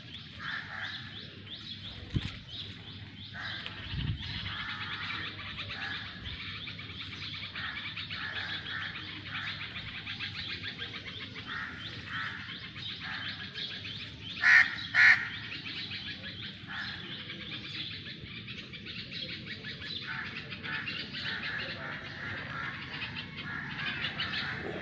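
Many small birds chirping steadily, with two loud bird calls close together about halfway through.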